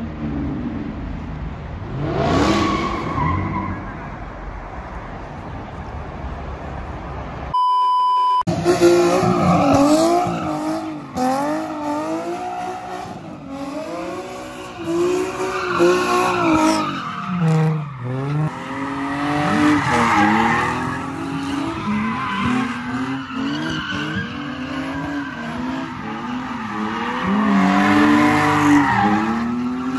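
Car engines revving up and down over and over with tires squealing and skidding, as cars drift and do donuts. About eight seconds in, a short steady beep cuts across everything.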